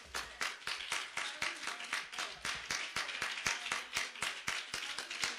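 Congregation clapping after the sermon ends: many quick, uneven hand claps from several people, several a second.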